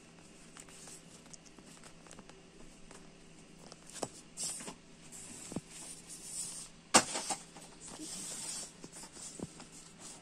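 Handling of a fabric lanyard with a metal lobster-claw clip: soft rustles of the ribbon and scattered clicks, the sharpest about seven seconds in, over a faint steady hum.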